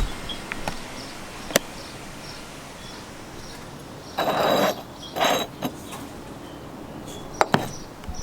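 Handling noises: a few sharp clicks, with two short noisy bursts about halfway through.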